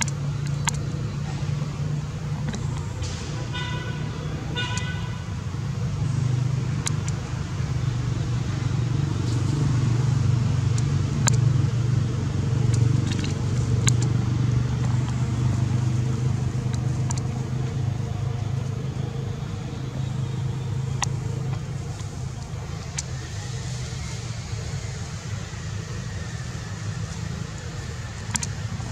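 Steady low hum of a motor vehicle's engine running nearby, a little louder in the middle, with two short toots a few seconds in and a few scattered clicks.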